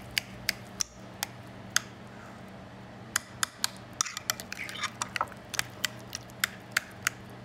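A utensil clicking sharply against a bowl as butter, cilantro and garlic are mashed together for garlic butter. The strikes come irregularly, about two or three a second, with a short pause near the middle.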